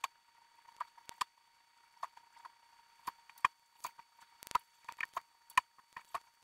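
Scattered light clicks and knocks, irregularly spaced, from an iron being handled on an ironing board, over a faint steady high hum; the footage is sped up.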